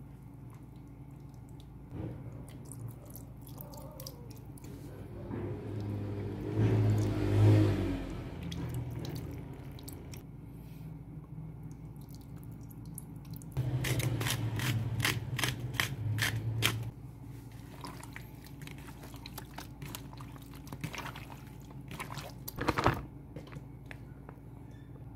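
Kitchen handling sounds: liquid poured over raw beef chunks and wet, squishy meat being worked in its marinade, with scattered clicks and drips. A low hum runs for a few seconds past the middle.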